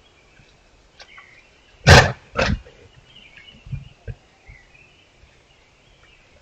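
Moose coughing: two short, loud coughs about half a second apart, around two seconds in, followed by a few much fainter sounds.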